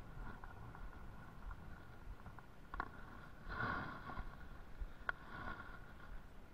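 Spincast fishing reel being cranked, its gears giving a faint steady whir, with sharp clicks about three and five seconds in and a short louder rush of noise about three and a half seconds in.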